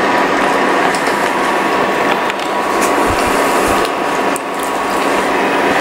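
A pan of undhiyu, green-gravy vegetable curry, sizzling with a steady hiss while a wooden spatula stirs and scrapes through it, giving small clicks and scrapes, as oil is worked in.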